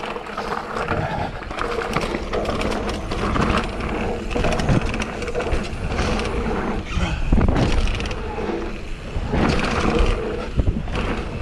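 Mountain bike rolling fast down a dirt flow trail, heard from a handlebar-mounted camera: tyres running over dirt, a steady low rumble of wind on the microphone, and the bike and its handlebar-mounted tripod rattling over bumps.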